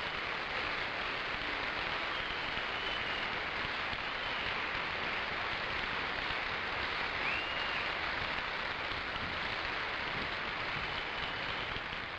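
Large audience of young concertgoers applauding steadily, starting to die away at the end.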